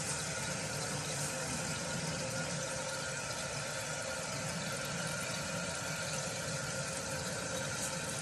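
Newly installed toilet fill valve running steadily as water refills the tank, an even hiss of flowing water; it has not yet shut off.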